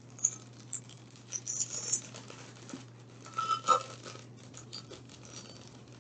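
Clear plastic sleeve crinkling and rustling in short, irregular bursts as it is handled and pulled open.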